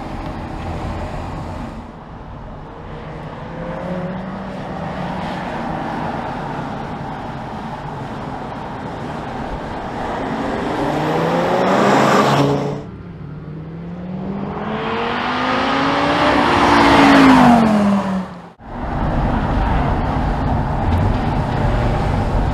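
Audi TT RS's 2.5-litre turbocharged inline five-cylinder engine and exhaust under acceleration as the car drives by. The engine note climbs steeply twice. The first climb breaks off abruptly. The second is the loudest and swings down in pitch as the car goes past, followed by a brief dropout and then a steady run of engine and tyre noise.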